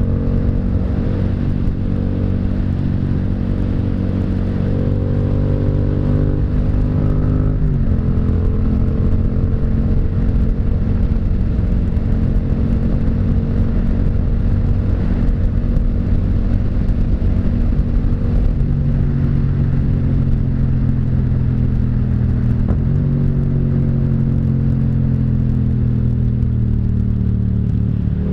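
Yamaha MT-07's parallel-twin engine running under way at fairly steady revs, with an abrupt drop in engine pitch about eight seconds in, as at a gear change, and the revs easing off near the end.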